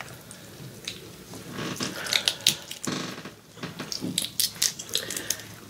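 Close-up eating sounds at a seafood boil: boiled crab and shrimp shells cracked and peeled apart by hand, with chewing, in a run of crackling, wet clicks that starts about a second and a half in.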